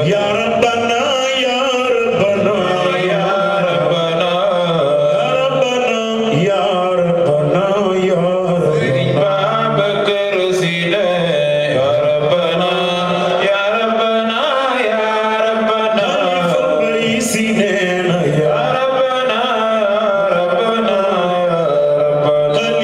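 A man chanting religious verses into a microphone, his voice amplified, in one continuous melodic line that rises and falls without breaks.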